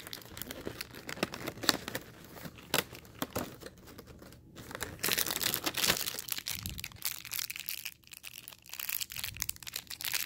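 Small cardboard and foil toy packaging being handled and pulled open by hand: crinkling and tearing with sharp little crackles and clicks, densest around the middle.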